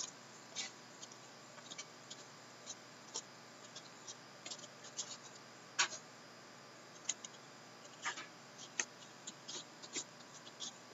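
2014-15 Upper Deck Masterpieces hockey cards being flipped through and sorted by hand: light, irregular clicks and snaps of card edges, a dozen or so, the sharpest a little past halfway.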